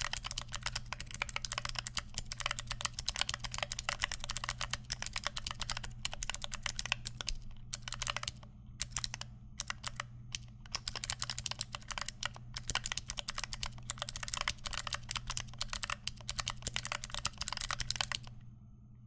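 Mechanical keyboard with tactile Pandaristotle switches (Panda housings, Aristotle stems) and DSA keycaps being typed on quickly, a dense run of key clicks with a couple of short pauses, stopping shortly before the end. A faint steady low hum runs underneath.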